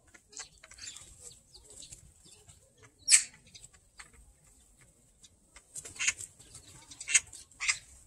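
Oriental magpies squabbling over food: a few short, harsh calls, the loudest about three seconds in and three more between six and eight seconds, with wings flapping as birds fly in and out.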